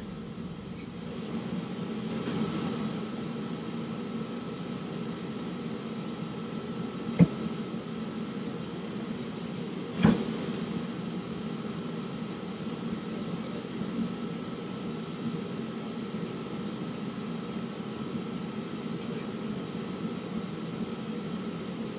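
Steady machine hum with a faint high steady tone, broken by two sharp knocks, about seven and ten seconds in.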